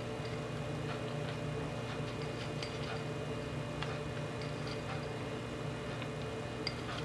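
Scattered light, irregular clicks of chopped nut pieces being dropped by hand onto batter in paper-lined metal molds on a baking tray, over a steady low hum.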